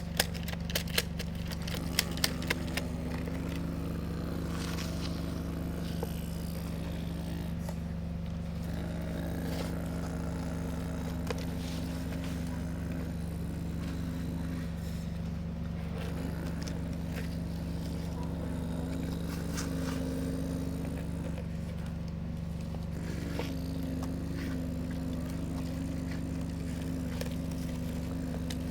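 Excavator running and working with a steady hum, a higher tone coming in and out every few seconds as the machine works. A quick run of sharp clicks or scrapes comes in the first few seconds.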